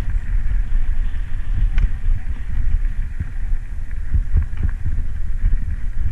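Wind buffeting the microphone of a camera on a bicycle riding down a rough mountain road, a heavy, unsteady rumble, with scattered clicks and rattles from the bike and the road surface.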